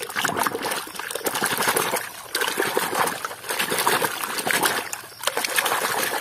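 Muddy water splashing and sloshing in a plastic tub as a hand scrubs a toy train back and forth under the surface, in fast uneven strokes with two short lulls.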